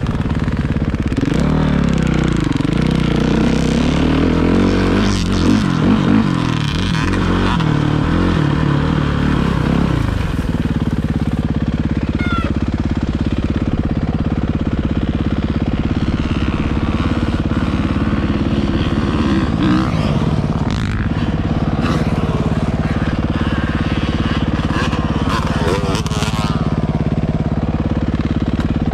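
Four-stroke motocross bike engine revving up and down with the throttle for about the first ten seconds, then running at a steadier pitch.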